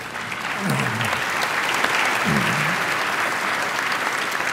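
Audience applauding, a dense steady patter of clapping, with a couple of brief voices from the crowd about one and two seconds in.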